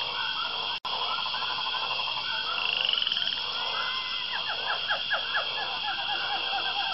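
A chorus of frogs croaking and trilling, steady throughout, with a run of quick chirps from about four seconds in.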